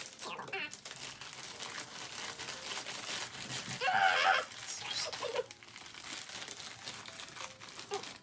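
Plastic mailer bag crinkling and rustling as it is snipped with scissors and pulled open by hand. About four seconds in comes a brief, loud, sped-up high-pitched voice straining 'Urghhh'.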